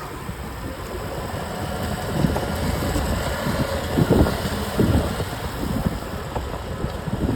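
Wind buffeting the microphone in irregular gusts, with a few faint ticks from a Giant Contend SL road bike, the abnormal noise it is being recorded for.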